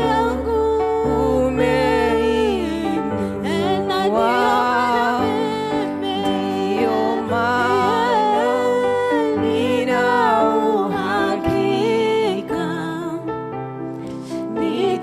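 Slow gospel worship music: a singing voice carries a wavering melody over a steady, sustained accompaniment.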